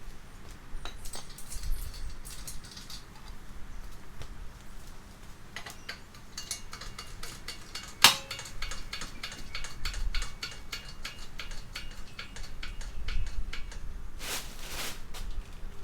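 Metal tools and engine parts being handled: scattered clinks and clicks, a quick run of small metallic clicks in the middle, and one sharp metal knock about halfway through.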